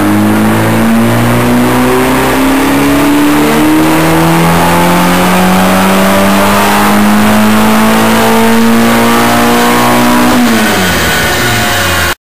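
Renault DOHC Gordini engine pulling under load on a dyno, its revs climbing steadily for about ten seconds, then dropping as the throttle closes. The sound cuts off suddenly near the end.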